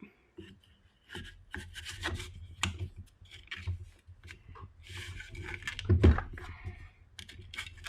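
An SB Tactical pistol brace being worked onto an AR-9 buffer tube: scraping and rubbing with many small clicks, and a louder knock about six seconds in.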